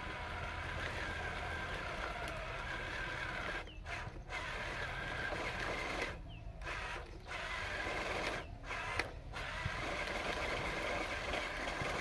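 Electric motor and gearbox of a Huina 1573 RC dump truck whirring steadily as it is driven, cutting out briefly three times.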